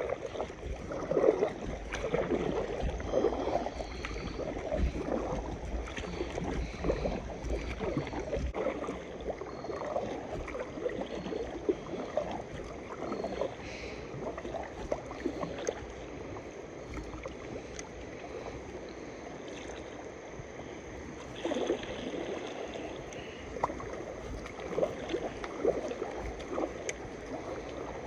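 A river swollen with floodwater rushing and churning, with extra low rumble in the first several seconds.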